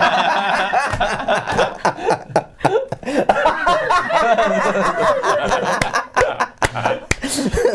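A group of several men and a woman laughing hard together, their laughs loud and overlapping, easing briefly just after the middle before rising again.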